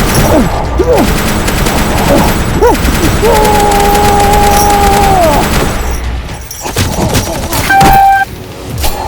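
Rapid automatic fire, a dense run of shots that stops about five and a half seconds in, with a shout held for about two seconds over it. A short, loud electronic beep sounds near the end.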